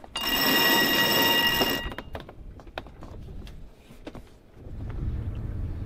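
Sailboat's cockpit sheet winch spinning fast with a loud buzzing whir for under two seconds as the sheet runs around the drum. A few separate ratchet clicks follow as the winch is worked by hand. Wind rumbles on the microphone near the end.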